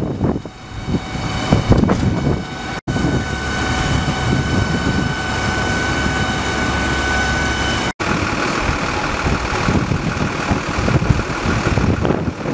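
Fire engine's diesel engine running steadily at idle, a mechanical hum with a thin steady whine for a few seconds in the middle, broken by two brief dropouts.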